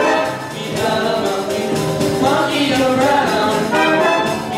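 Musical theatre number performed live: a group of voices singing together over instrumental accompaniment with a steady beat.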